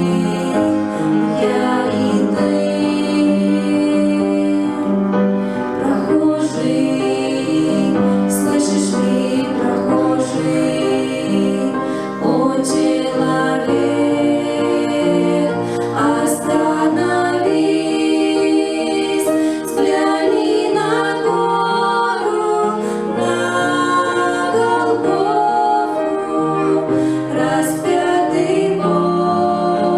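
A Christian song sung by women's voices with instrumental accompaniment, carrying on steadily.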